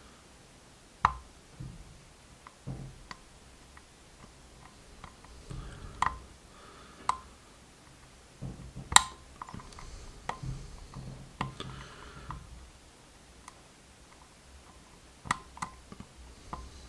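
Picking a Mul-T-Lock Integrator dimple lock: irregular small metallic clicks and light scraping as a dimple pick works the pins under heavy tension, with the sharpest click about 9 s in.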